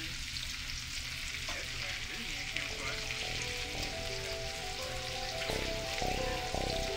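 Seasoned chicken leg quarters sizzling as they sear in hot oil in a cast-iron skillet: a steady frying hiss.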